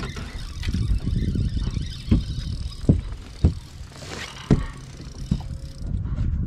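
Wind rumbling on the camera's microphone, with about five dull thumps roughly a second apart through the middle.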